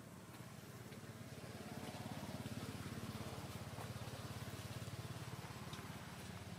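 A small engine or motor running with a steady low throb that grows louder about a second and a half in.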